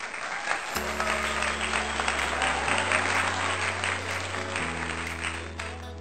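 Applause mixed over intro music with sustained bass chords that change about every two seconds; the clapping fades out near the end.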